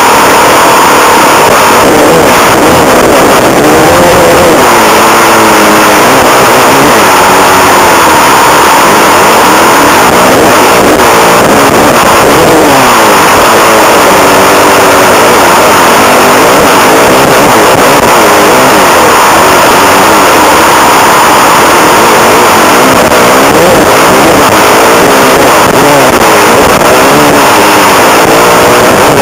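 Suzuki motocross bike's engine revving up and falling back again and again as it is ridden hard around a dirt track, close to an on-board camera microphone. The recording is overloaded, with a constant rushing noise under the engine.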